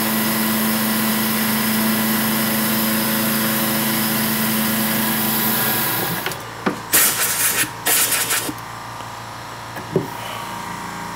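Milling machine spindle running an end mill through a final cut on a flat of a round metal part, a steady hum with a loud hiss from the cut. After about six seconds the cut ends and the sound drops; a few short, sharp noisy bursts follow, then the machine hums on more quietly with a single click.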